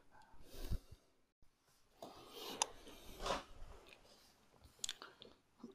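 Faint close handling noises of fingers working a small plastic smartwatch capsule and its new screen: scattered soft rustles with a few small sharp clicks.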